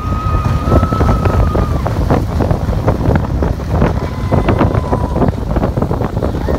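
Steel roller coaster train running fast through banked turns: a dense rumble from the train and heavy wind buffeting the microphone, with rattles throughout. Two long high-pitched cries rise above it, one near the start for almost two seconds and another about four seconds in.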